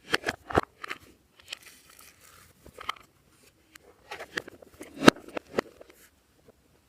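Glossy slime being squeezed and kneaded by hand: a run of sticky clicks and pops from trapped air, with soft crackling in between. The loudest pop comes about five seconds in.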